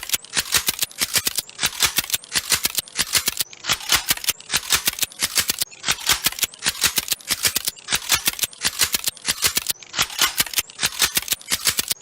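Rapid, steady rattling clicks repeating about four to five times a second without a break.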